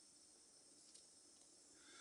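Near silence, with faint handling noise from small lighter parts: a light tick about a second in and a soft scrape near the end as a thin metal rod goes into a small tube.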